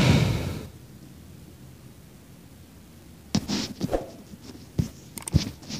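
A brief rush of noise at the start, then quiet room tone with several small clicks and taps in the second half.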